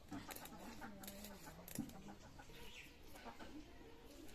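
Knife scraping scales off a mrigal carp in short strokes, the sharpest about two seconds in, with a hen clucking.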